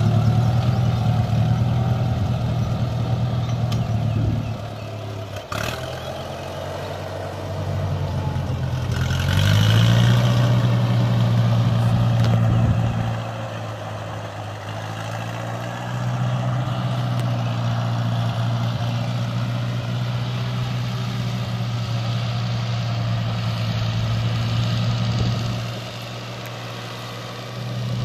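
Farm vehicle's engine running. It drops back about four seconds in, then revs up with a rising pitch around nine seconds and settles into a steady run, with a single sharp click in between.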